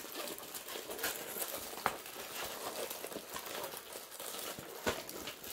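Clear plastic protective film on a diamond painting canvas crinkling and rustling as the canvas is unrolled and handled, with a couple of sharper crackles, about two seconds in and again near the end.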